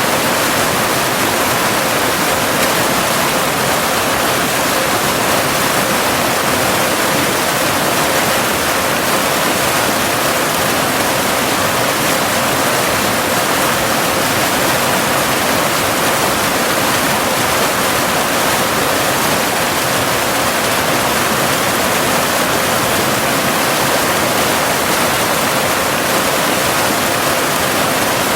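Steady, unbroken rush of a cascading waterfall, with a faint steady 528 Hz binaural tone mixed under the water noise.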